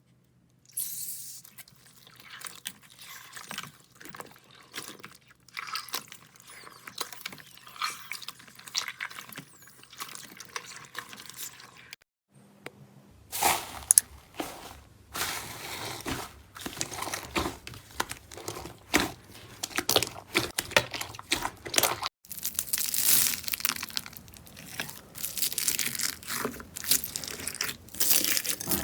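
Slime being handled: dense crackling, crinkling and clicking as it is pressed and stretched, with a break and a fresh clip about twelve seconds in and another about twenty-two seconds in.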